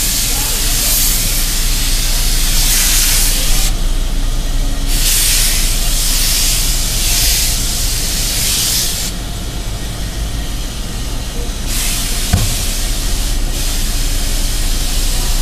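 Handheld steam iron hissing in repeated bursts of steam as it presses a gown's fabric, over a steady low hum.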